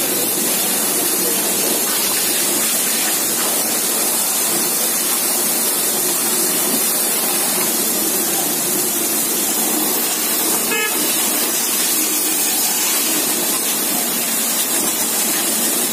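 High-pressure water jets spraying onto a JCB 3DX backhoe loader's steel bucket and body: a steady, loud hiss of spray with a low hum underneath, and one brief click about eleven seconds in.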